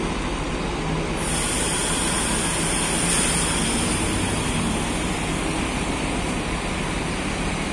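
Diesel coach bus engine running as the bus pulls away and drives off, with a high hiss that starts abruptly about a second in and fades out over the next few seconds.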